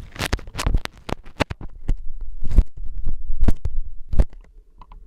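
A run of irregular knocks and thumps, more than a dozen in a few seconds, dying away near the end.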